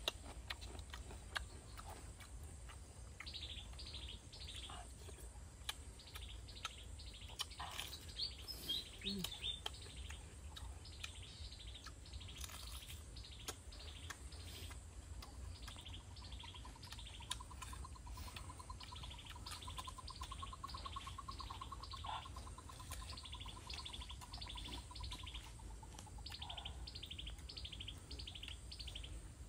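A bird singing a long series of short, high, downward chirps, about three a second, repeated over and over. A long, even, lower trill runs through the middle.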